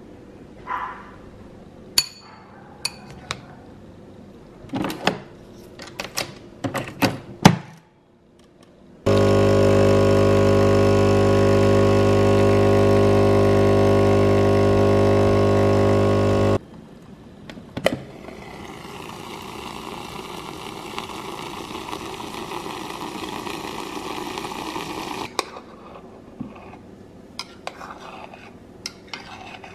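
Spoon and bowl clinking, then an espresso machine's pump humming loudly and steadily for about seven seconds as the espresso pours. After it stops, a quieter steady whir follows for about seven seconds, from an electric milk frother foaming milk, and a few small clicks come near the end.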